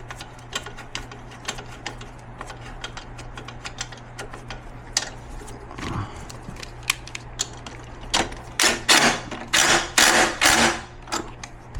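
Small metal clicks and rattles of a screw being fitted through the tilt actuator's mount on a power wheelchair, then several louder short rasping tool strokes in the last few seconds as it is worked in.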